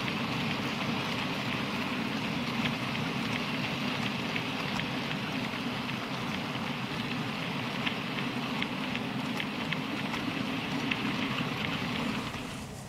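Long rake of model mineral wagons rolling over pointwork: a steady rumble with a rapid patter of small clicks from the wheels crossing rail joints and points. The sound drops away just before the end.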